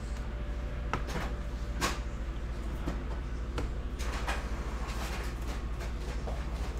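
HP DeskJet inkjet printer starting a print job: a few faint clicks and clunks over a steady low hum.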